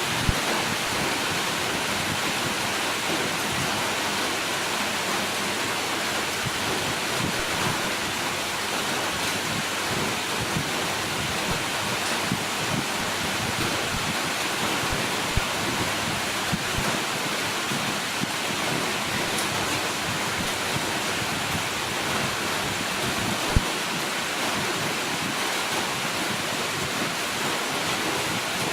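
Heavy rain falling steadily, with a few sharper taps standing out.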